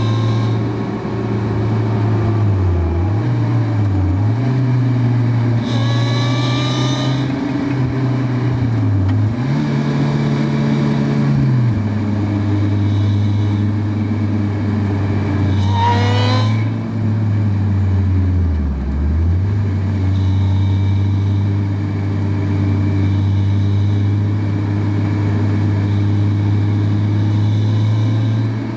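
Onboard sound of a motorcycle under way: the engine runs with a strong steady note that dips briefly a few times as the throttle is eased, over constant rushing noise. Twice, about six and sixteen seconds in, a quick rising rev cuts through.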